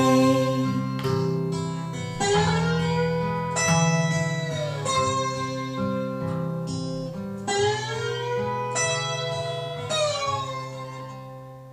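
Instrumental guitar outro of a song: plucked guitar notes with sliding, bending pitches over a held low note. It fades out near the end.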